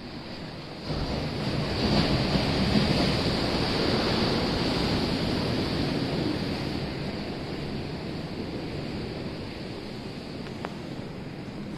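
Ocean surf: a wave breaks about a second in, is loudest over the next few seconds and slowly washes out over a steady hiss of water and wind.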